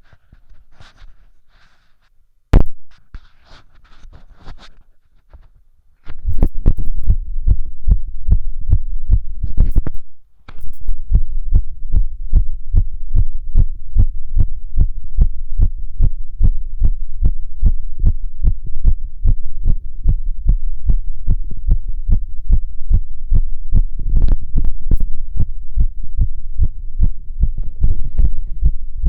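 A fast heartbeat heard through a stethoscope on the chest: a quick, even run of low thumps, a fast heart rate with otherwise normal heart sounds. Before it, about six seconds of faint rustling with one sharp knock as the chest piece is handled, and the beat drops out for a moment around ten seconds in.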